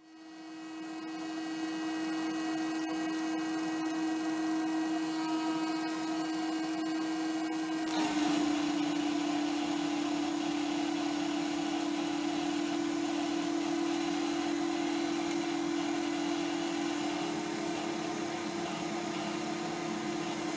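Electric motors driving a 3D-printed two-stage centrifugal compressor, spinning up and running at high speed: a steady whine over a rush of air, building up over the first two seconds. About eight seconds in there is a sharp click, and the whine drops slightly in pitch as the sound grows louder and noisier. Running like this, the compressor only just moves the pressure gauge off zero.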